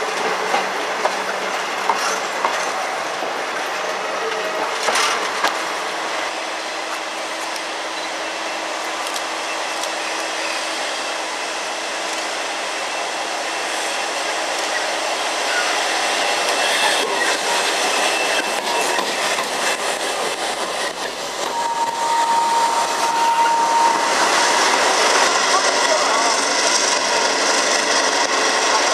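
V/Line diesel-hauled passenger trains moving through the station. Steel carriage wheels click over rail joints as the carriages roll slowly past. A steady tone sounds for about two seconds past the middle, and the noise grows louder near the end as another train moves off.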